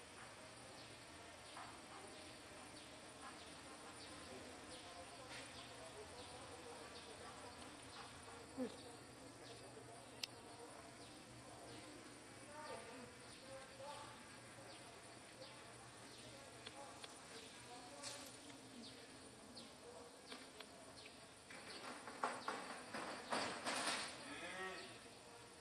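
Faint background of insects buzzing with a steady high whine, dotted with small clicks. A louder stretch of scratchy noise comes near the end.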